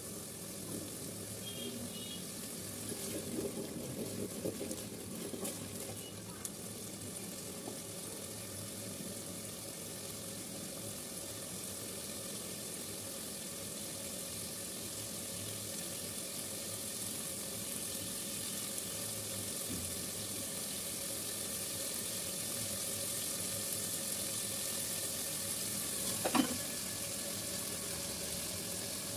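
Hot oil sizzling steadily in a cooking pot, with one short sharp sound near the end.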